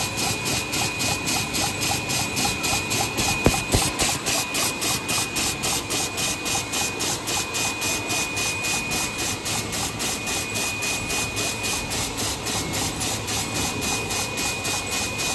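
Paper cup inspection machine running at full speed, with an even hissing pulse about three to four times a second in step with the cups passing through, over a steady high whine. One sharp click comes about three and a half seconds in.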